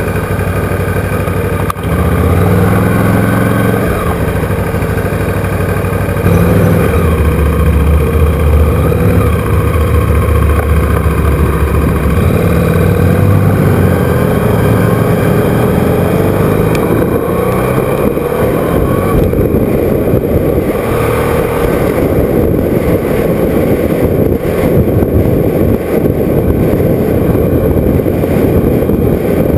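KTM motorcycle engine running and pulling through changes in engine speed as the bike rides off, with wind rushing over the onboard microphone as speed builds in the second half.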